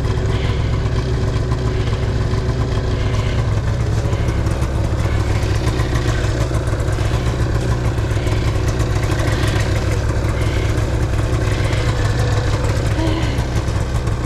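Snowmobile two-stroke engine idling steadily.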